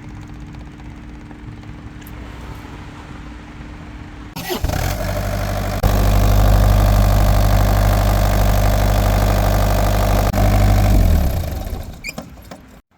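Engine being started after an oil change. At first there is a steady low hum of the fuel and oil system priming. About four seconds in the engine cranks, then fires and runs loudly for about five seconds before it dies away near the end.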